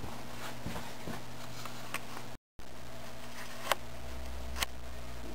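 Quiet workshop room tone with a steady electrical hum and a few light clicks, the two clearest in the second half. There is a brief dropout to silence about two and a half seconds in.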